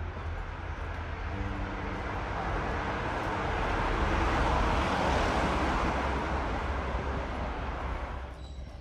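A vehicle passing close by on the street: a broad rushing noise that builds to a peak about halfway through and dies away near the end. Quiet background music plays underneath.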